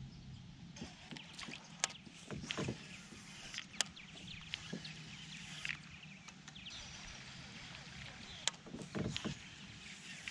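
Scattered sharp clicks and knocks over a faint steady background: fishing gear being handled in a small boat on the water.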